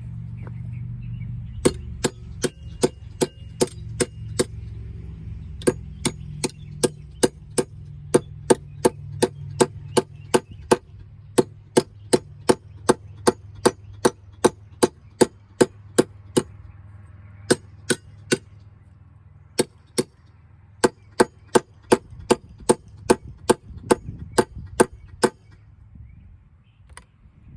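Hammer driving steel wedge anchors down into holes in concrete: sharp metal-on-metal clangs, about three a second, in several runs with short pauses.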